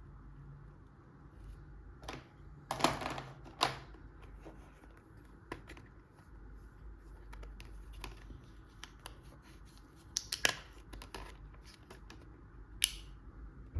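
Toy packaging and small play-set pieces being handled during unboxing: scattered light clicks and short crinkling rustles, the loudest about three seconds in, around ten seconds in and near the end.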